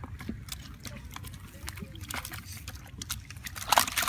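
Wet sloshing and light splashing of shallow muddy water, with scattered sharp wet clicks and a louder splash just before the end.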